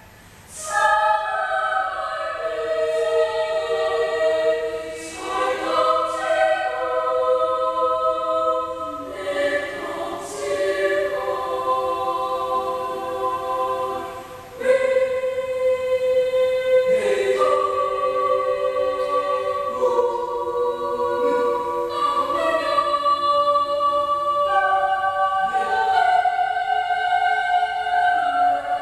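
Children's choir of boys and girls singing, holding long high notes phrase after phrase. There is a short breath just before the singing comes in at the start, and another at about fourteen seconds.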